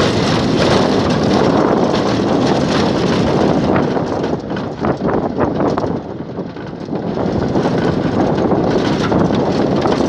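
Vehicle driving along a rough dirt road: its running engine mixed with heavy wind buffeting on the microphone. It drops quieter for a couple of seconds about halfway, with a few short knocks.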